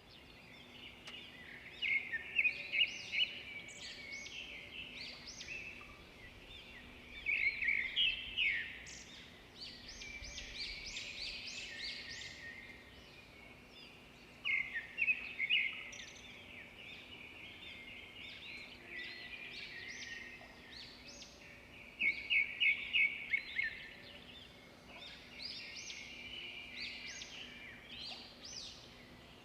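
Several songbirds singing and chirping, with bursts of fast repeated trills and chirps every several seconds over a faint steady low hum.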